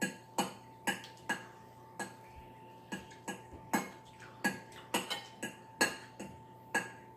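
Utensils clinking against dishes while eating: irregular sharp clinks, about two a second, each with a brief ring, over a faint steady hum.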